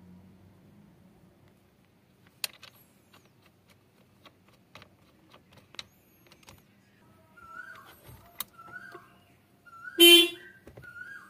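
Small plastic clicks and knocks as the airbag and horn connectors are plugged into a Toyota steering wheel hub, then a single brief blast of the car horn about ten seconds in as the airbag/horn pad is pressed home.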